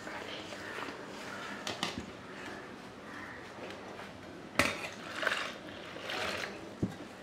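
Hands mixing dry flour in a stainless steel bowl with a soft rustle, and a few clinks of steel vessels. The loudest is a sharp clink a little past halfway as a small steel tumbler knocks the bowl before being tipped into it.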